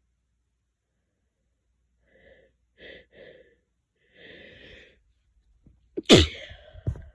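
A few short, breathy catches of breath build up, then a single loud sneeze about six seconds in, followed by a smaller burst just before the end.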